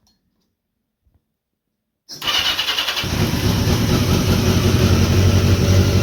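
1982 Yamaha XJ650's inline-four engine cranked on the electric starter; about two seconds in the starter whirs briefly, and the engine catches within a second and runs steadily.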